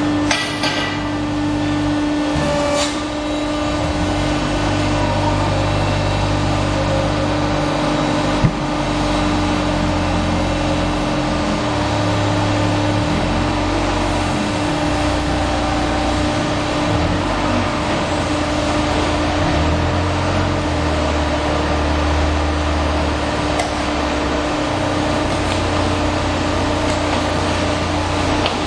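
Concrete pipe making machine running: loud, steady machinery noise with a constant hum and a low rumble that shifts in pitch and level every few seconds, and a single sharp knock about eight seconds in.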